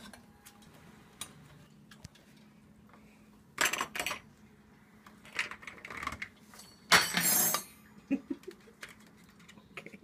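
Metal cutlery clinking and clattering as a Moluccan cockatoo pulls it from a dishwasher's silverware basket and flings it onto a tile floor. There are several separate clatters over a few seconds, the loudest about seven seconds in.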